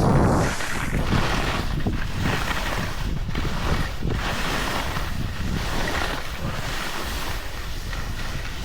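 Wind rushing over the camera microphone during a downhill run on a ski slope, mixed with the hiss of edges sliding across the snow, rising and falling through the run.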